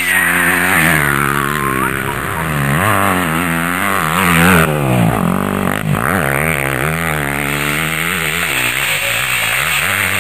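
Motocross dirt bike engine revving hard as it is ridden, its pitch climbing and dropping again and again with the throttle.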